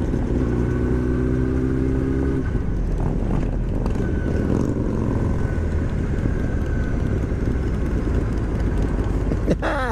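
Yamaha YZF-R6S inline-four sportbike riding along with wind rush on the microphone. A steady engine note holds for about the first two and a half seconds, then the engine drops back under the wind noise. A brief wavering pitch comes near the end.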